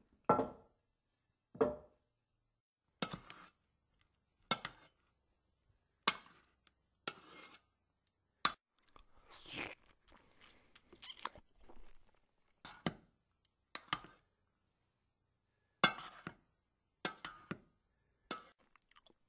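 Plastic toy food and a plastic toy spoon knocking and clattering against plastic bowls and a tabletop: a dozen or so short, sharp knocks at uneven intervals, with one longer, noisier sound about halfway through.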